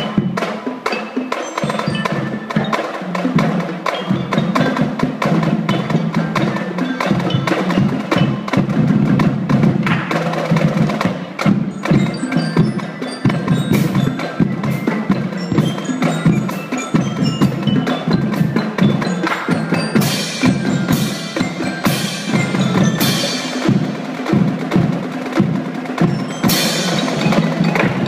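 A drumline playing a fast percussion piece on snare drums, tenor drums and a row of bass drums, with dense stick strokes and a pounding low drum part. Several loud crashes, likely from hand cymbals, come in the second half.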